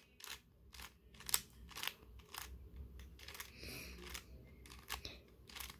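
Plastic layers of a stickerless 3x3 speed cube clicking faintly as they are turned one after another, about two clicks a second with a brief scraping turn partway through: the moves of a T-perm, turned by wrist.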